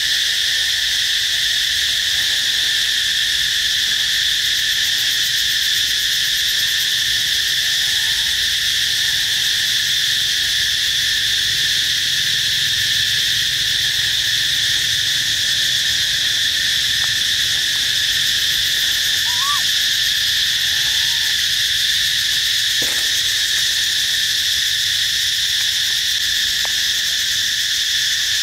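Steady, high-pitched drone of a forest insect chorus, unbroken and unchanging in level.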